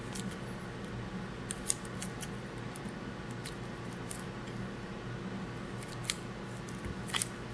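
Light metallic clicks of a hex key seating in and turning the Allen head screws on a pump's plate, scattered and irregular, over a steady low hum.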